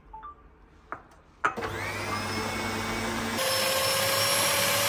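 Electric mixer switched on about a second and a half in, spinning up with a rising whine and then running steadily as it whisks a wet donut dough of flour, milk, egg and yeast; near the end it shifts to a louder, higher note.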